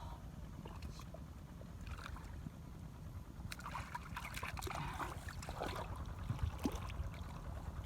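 Shallow muddy water splashing and sloshing in irregular bursts, starting about three and a half seconds in, over a steady low rumble.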